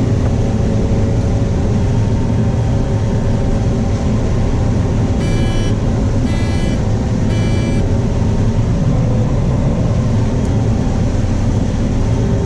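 Combine harvester running steadily under load while harvesting corn, heard from inside the cab as a constant low drone. About five seconds in, an electronic alarm beeps three times, about a second apart.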